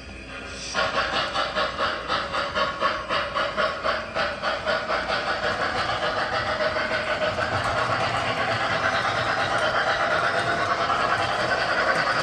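O scale model train running on the layout: it starts suddenly about a second in with a rhythmic pulsing of a few beats a second, which gradually evens out into a steady rushing hiss.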